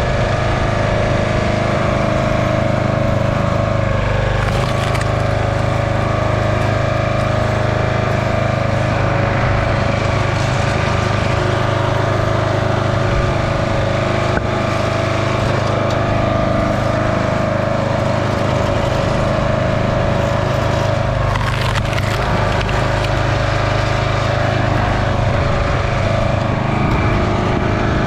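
Small gasoline engine of a hydraulic log splitter running steadily at a constant speed, its note shifting slightly about four seconds in and again about two-thirds of the way through.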